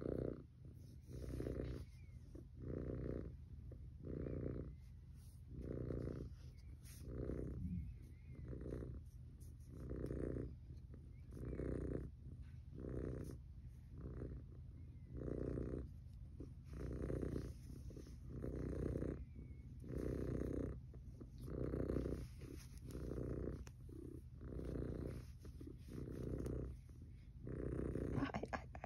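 Domestic cat purring steadily close up, the purr swelling and fading with each breath about every one and a half seconds.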